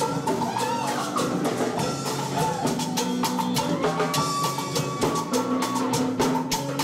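Live band playing ska-reggae music, with a drum kit keeping a steady beat over bass and a pitched lead line.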